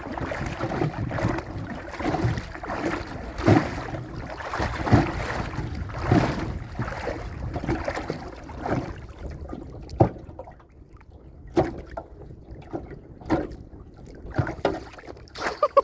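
Water splashing and sloshing around a small boat, with irregular knocks of gear and hands against the hull as river-prawn traps are handled; it quietens about two thirds of the way through.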